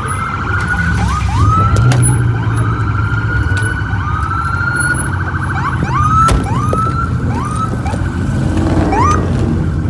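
Police sirens sounding in short rising whoops that level off at a held pitch, repeating every second or two, over the steady low rumble of car engines running.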